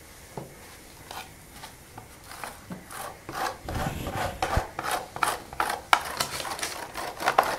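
Pie dough being rubbed against the metal face of a hand-held box grater: a run of quick rasping strokes, a few a second, starting about two seconds in after some light handling ticks.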